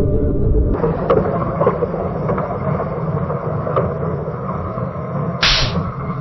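Submarine sound effect: a steady low underwater rumble with faint scattered clicks, and one short hissy burst about five and a half seconds in. Under a second in, a pitched, echoing tone from the previous effect cuts off abruptly as this one begins.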